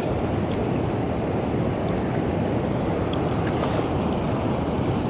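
Steady rushing of water pouring over a river dam, an even roar without breaks.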